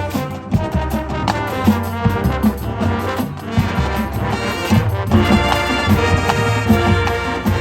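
High school marching band playing a loud brass-heavy passage, trombones and trumpets over steady percussion hits.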